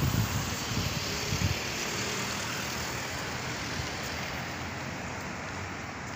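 Street traffic noise with wind buffeting the microphone, the gusts strongest in the first second and a half and then a steady hiss.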